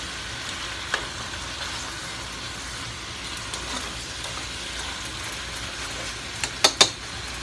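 Rabbit pieces sizzling steadily as they are sautéed in butter in a pot, stirred with a spoon. There is a sharp click about a second in, and a few sharp knocks of the spoon against the pot near the end, two of them the loudest sounds.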